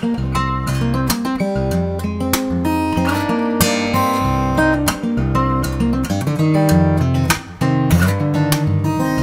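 Steel-string acoustic guitar played solo fingerstyle: sustained bass notes under a picked melody, with many sharp struck attacks. The playing breaks off briefly about seven and a half seconds in, then resumes.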